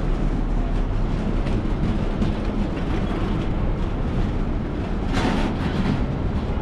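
Steady outdoor city ambience, mostly a low traffic rumble, with a brief louder rush of noise about five seconds in.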